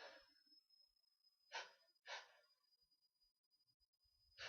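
A person breathing faintly after a sneeze: two short breaths about a second and a half in, half a second apart, and another near the end.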